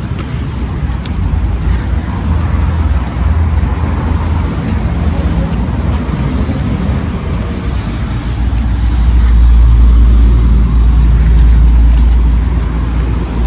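Street traffic noise from passing motor vehicles, a low rumble that grows louder about eight seconds in.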